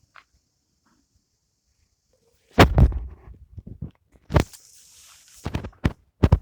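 A run of sharp knocks and thumps with brief rustling between them, starting about two and a half seconds in after near silence.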